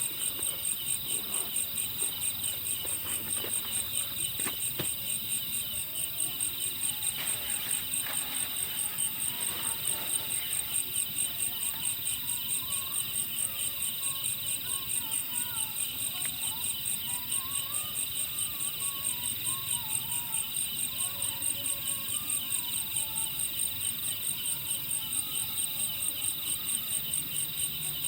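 Crickets chirping steadily in a fast, even pulse, several insects calling together. A few faint clicks come in the first half, and a faint wavering call rises and falls in the middle.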